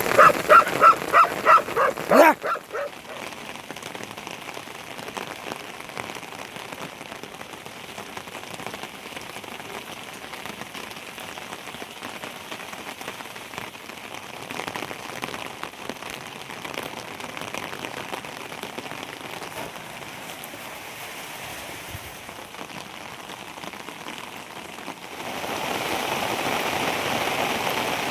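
Steady rain falling, growing louder near the end. At the start a dog gives a quick run of yapping barks for about two seconds.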